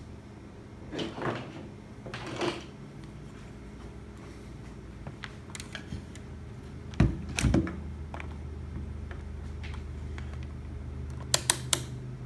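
A few separate knocks and clicks, the loudest about seven seconds in, then a quick run of three sharp clicks near the end, over a steady low hum.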